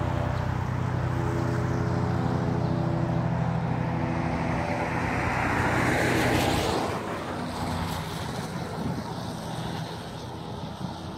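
An engine droning steadily with a hum of several tones. It swells to its loudest about six seconds in, then fades away, leaving a softer rushing noise.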